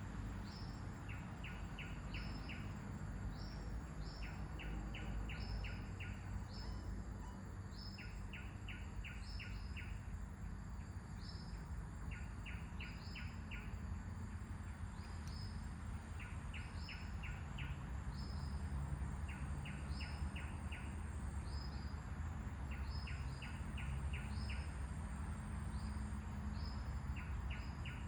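Birds calling over a steady low wind rumble: a short, high falling chirp repeats about once a second, and quick runs of four or five lower notes come every couple of seconds.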